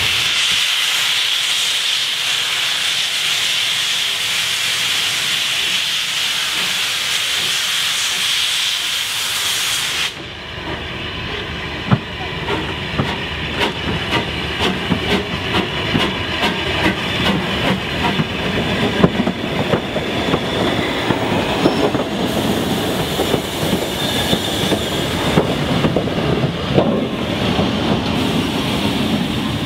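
LMS Jubilee Class three-cylinder 4-6-0 steam locomotive moving off with its cylinder drain cocks open, giving a loud, steady steam hiss. The hiss cuts off about ten seconds in, and the engine passes close by with a rumble and a rapid run of clanks and clicks from its wheels and motion.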